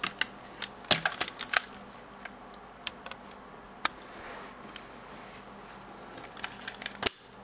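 Hard plastic parts of a RoadBot Lamborghini Murcielago transforming toy clicking and clacking as it is handled and folded. Scattered single clicks come first, then a quick cluster of clicks near the end.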